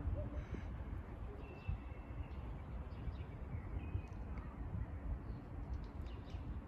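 Outdoor ambience: a steady low rumble with a few faint, brief bird chirps, about one and a half and four seconds in.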